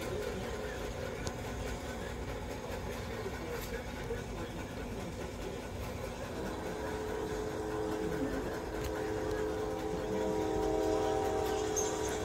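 An electric shop tool's motor running steadily, with a steady humming whine that sets in about halfway through.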